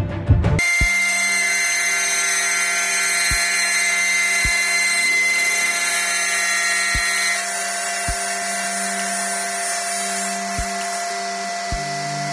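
Sliding table saw running with a steady high whine while a melamine panel is pushed through the blade; the high cutting noise eases off about seven seconds in. Several dull low knocks sound through it.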